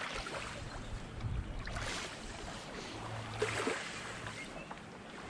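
Small waves lapping and washing against the loch shore, swelling three times.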